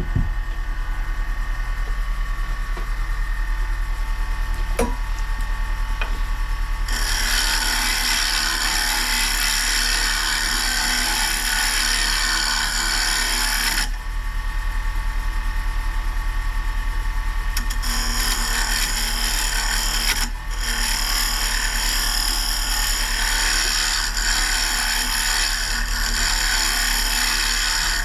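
Wood lathe humming steadily while a carbide tool scrapes the spinning maple bowl with a loud hissing cut. It comes in two long passes: the first from about a quarter of the way in to the halfway point, the second from about two-thirds of the way in to the end, with a brief break.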